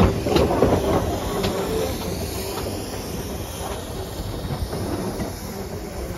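Train passing close by BR Standard Class 4 steam locomotive 76017: the locomotive hisses steam while carriage wheels click over rail joints. The sound fades as the two draw apart.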